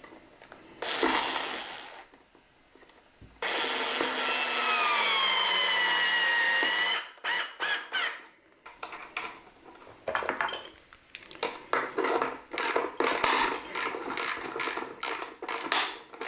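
Cordless screwdriver driving screws to fasten a fuse block: a short run about a second in, then a longer run of about three and a half seconds whose motor pitch slowly sinks as the screw tightens under load. After that, a string of irregular clicks and knocks as parts are handled.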